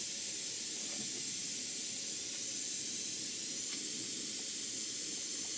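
Jubilee Fittings pop-type safety valve on a model copper steam boiler blowing off steam in a steady hiss: the boiler has reached its blow-off pressure of just under 50 psi.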